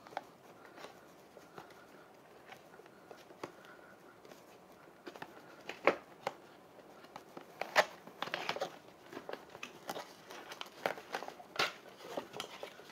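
Packaging being handled by hand: rustling and crinkling, with scattered sharp clicks and taps, the loudest about 6, 8 and 11.5 seconds in.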